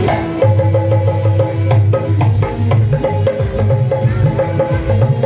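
Dance music with drums and a heavy bass line, the beat coming in about half a second in and keeping a steady rhythm.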